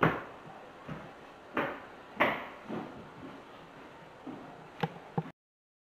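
Footsteps on a tile floor: a string of uneven thuds and scuffs, the sound cutting off suddenly near the end.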